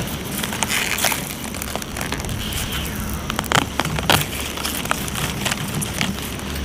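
Hands pulling plants out of the soil among green onions: leaves and stems rustling, with crackling and sharp snaps of roots and soil. The sharpest snaps come a little past the middle.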